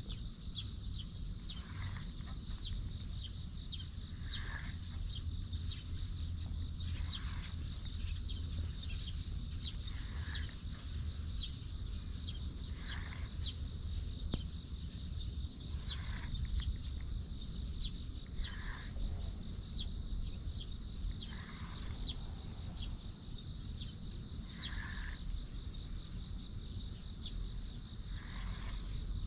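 Insects chirping in a dense, steady stream of fast high ticks, with a short call repeating about every three seconds, over a low steady rumble.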